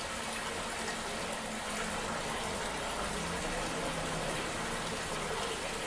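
A water-jet vacuum pump (aspirator) running on a lab tap, giving a steady rush of water as it draws suction through the apparatus.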